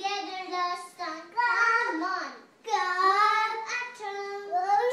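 A young child singing a tune in four drawn-out, wavering phrases with short breaks between them.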